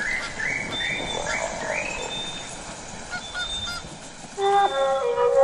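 A run of short rising animal calls, about two and a half a second, that stops about two seconds in and is followed by a few faint chirps. About four and a half seconds in, music with sustained brass-like tones begins and becomes the loudest sound.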